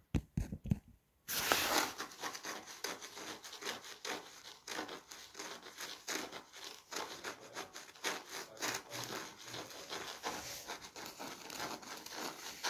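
Rubbing and scraping noise right against a phone's microphone, as the phone is handled, starting about a second in and going on in quick irregular scrapes.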